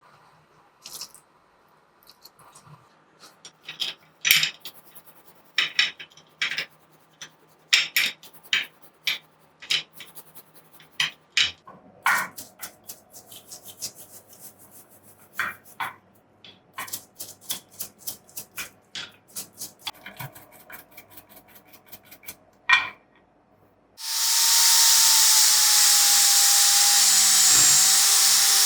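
Irregular hand-tool work on metal: many short clicks, taps and scrapes, some in quick runs. About 24 seconds in, a power tool starts and runs steadily with a whine that sags slightly in pitch.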